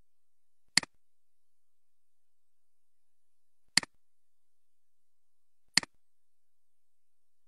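Three computer mouse clicks, each a sharp tick with a softer second tick just after, about three seconds and then two seconds apart.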